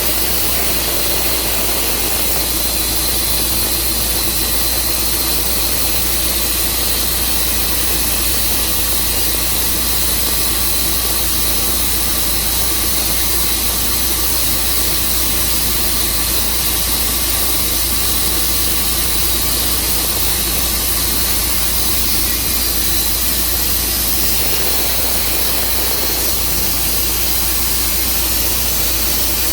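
Sawmill's engine running steadily: a loud, even machine noise that holds the same pitch throughout.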